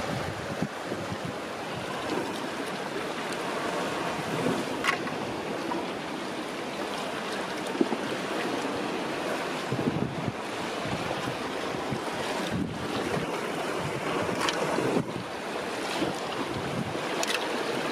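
Seawater surging and washing over shoreline rocks and through a rock pool, with wind buffeting the microphone. A few short, sharp clicks stand out.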